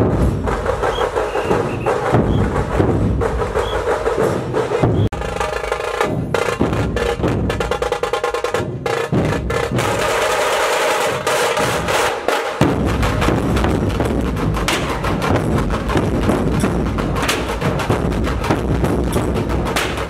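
A street troupe of large dhol drums beating a fast, loud rhythm with dense stick strokes. There is a brief drop about five seconds in, and the deep drum sound grows fuller a little past halfway.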